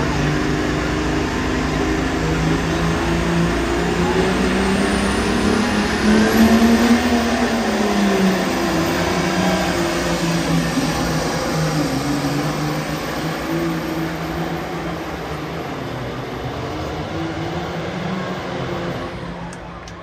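Green John Deere pulling tractor's engine running hard under full load as it drags a weight-transfer sled down the track. A thin high whine climbs about five seconds in and holds. The engine pitch rises and then settles, and the engine grows quieter over the last few seconds as the tractor moves off.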